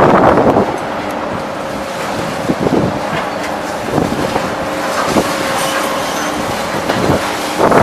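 Scrap metal shredding plant running with a steady drone and hum, broken by crashes and clanks of scrap metal. The loudest crash comes in the first half-second, and shorter clanks follow at intervals of about one to two seconds, the last near the end.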